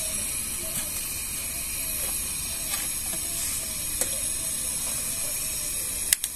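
Portable butane camping stove burning with a steady hiss under a small pot of water heating toward the boil, with faint sizzling. Two sharp clicks near the end.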